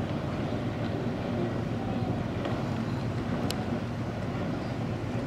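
Steady low wind rumble on the microphone with outdoor background noise.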